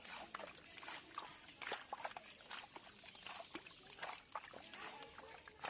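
Shallow muddy water trickling and sloshing through a narrow mud channel, with many small irregular splashes and clicks.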